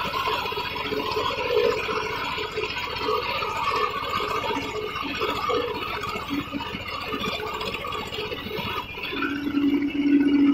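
Tractor's diesel engine running under way, with rattling. About nine seconds in, a steady lower drone comes up and the sound grows louder.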